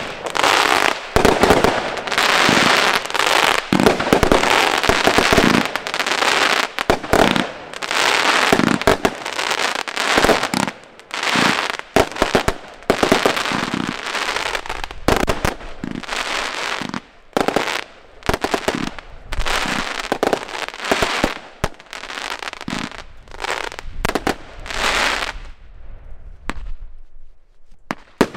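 Consumer firework battery (cake) firing in quick succession: shots launch and burst overhead with sharp bangs and dense crackling. It thins out and goes quieter near the end.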